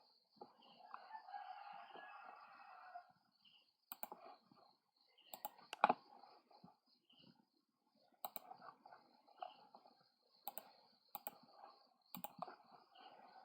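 Computer mouse clicks, a dozen or so at irregular intervals, as line points are placed in CAD software. One loud click comes about six seconds in. A rooster crows once in the background, starting about half a second in and lasting some two and a half seconds, over a faint steady high whine.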